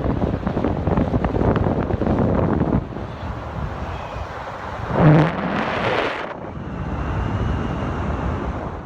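Car moving along a road: steady tyre and wind noise, with a louder rushing swell about five seconds in.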